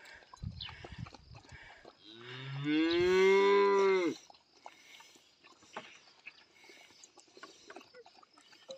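A cow moos once: one long call of about two seconds, starting about two seconds in, its pitch stepping up partway through.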